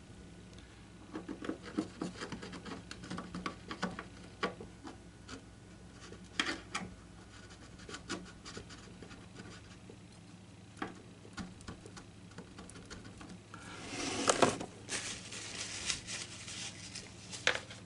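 A thin steel feeler gauge scraping and ticking as it is worked into the loose seam between an acoustic guitar's top and binding to push hide glue under the top. Irregular light scratches and taps, with a louder spell of rubbing and handling about 14 seconds in.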